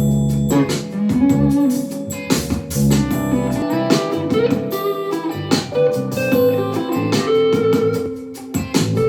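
Guitar-led music with strummed and picked electric guitar, played at 80% volume through an Ultimate Ears portable Bluetooth speaker.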